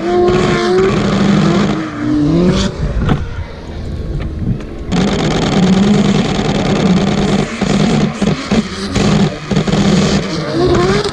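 Two drift cars running a tandem lead-and-chase drift, their engines revving up and down. The engine note eases off a few seconds in, then picks up again.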